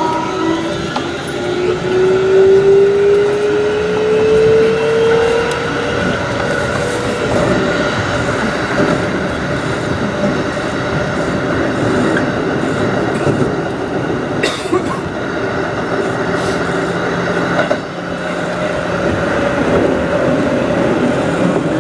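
Keikyu New 1000 series electric train running, its Siemens IGBT-VVVF inverter and traction motors whining in a tone that rises in pitch over the first few seconds as the train accelerates. Steady wheel-and-track running noise follows, with a sharp click about 14 seconds in. A brief dip in level near the end gives way to steady inverter tones.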